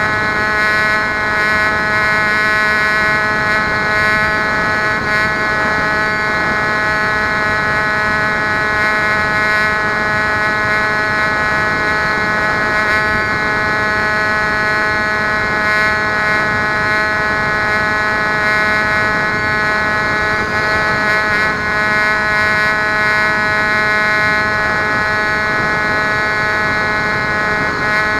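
Electric motor and propeller of a Bixler RC foam plane whining steadily in flight, heard through the onboard camera, over a hiss of air noise.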